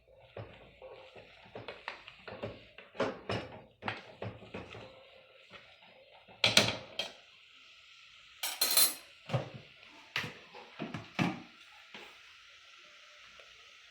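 Kitchen utensils clattering and knocking against a cooking pot in an irregular string of knocks, loudest in the middle, over a faint steady hiss.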